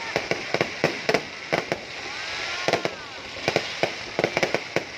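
Fireworks going off in a rapid, irregular series of sharp bangs and pops, several a second, thinning briefly a little past the middle.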